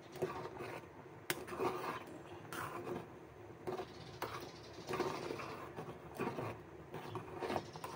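Metal spoon scraping and clinking against an aluminium pot as macaroni is stirred in boiling water, in irregular strokes with several sharper knocks.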